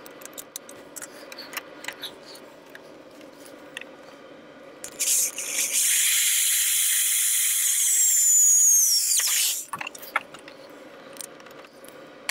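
Handheld electric drill running in one burst of about four and a half seconds, starting about five seconds in: a high whine that slides down in pitch just before it stops. Light clicks and handling noises come before and after it.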